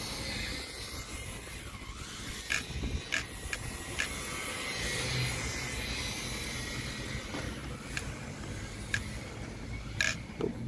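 Electric 1/10 RC drift car driving, its motor and sliding tyres making a steady hiss, broken by several short sharp knocks.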